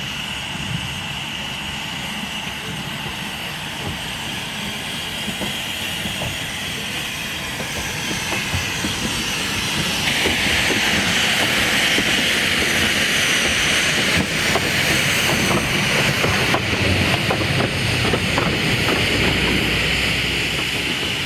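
Small narrow-gauge steam tank locomotive moving slowly on the track, steam hissing from around its cylinders, with scattered clanks and clicks. The hiss gets louder about halfway through as the engine comes close.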